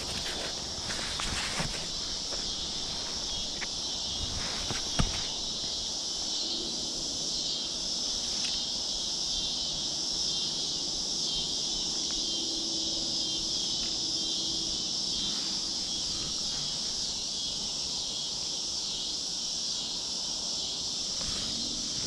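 Steady high-pitched chorus of insects. A few sharp clicks and taps come in the first five seconds, the loudest about five seconds in.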